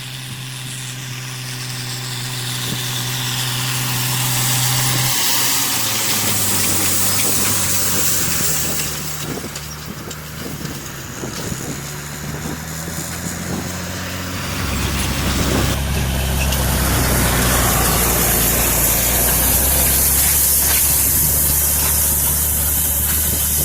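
Farm tractor engine running while raking hay, a steady note that drops in pitch about five seconds in and again past halfway, and grows louder near the end.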